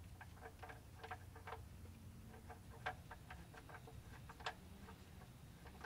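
Faint, irregular light ticks, several a second, as a steel oil drain plug is threaded back into a pickup truck's oil pan by gloved hand.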